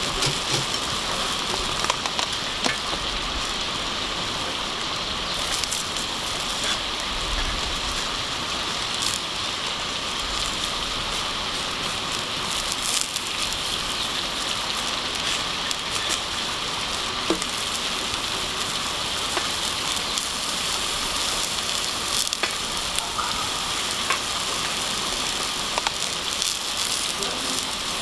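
Food sizzling steadily in a pan over a campfire, with scattered small pops and crackles.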